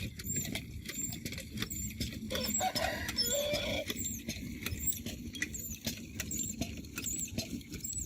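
Small birds chirping, short high-pitched chirps repeating about twice a second, with a few brief lower calls a few seconds in, over a steady low rumble of background noise.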